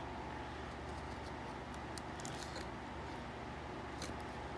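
Faint scratching and a few light clicks from a knife cutting the plastic seal on a new phone's box, over a steady low room hum.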